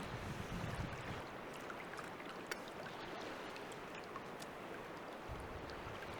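Lake water lapping gently, a faint steady wash with a few small scattered ticks.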